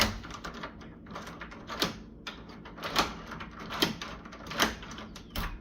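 Newly installed deadbolt being worked, its bolt throwing and retracting: a series of sharp metal clacks about a second apart.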